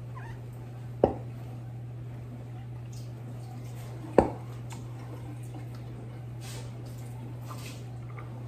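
Glass canning jars being emptied of water and handled: two sharp knocks, about a second in and about four seconds in, a few light clinks, and brief splashing and dripping of water near the end, over a steady low hum.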